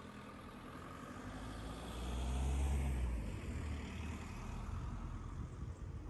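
A motor vehicle passing by on the road, growing louder to a peak about halfway through and then fading.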